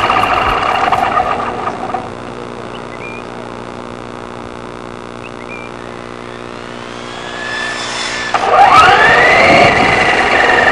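Electric RC model motor whining with a steady pitch. About eight seconds in it gets louder and its pitch slides up and down.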